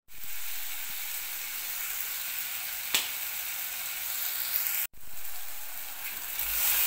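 Chopped tomatoes and onions sizzling in hot sunflower oil in a pan, a steady hiss, with a single sharp click about three seconds in.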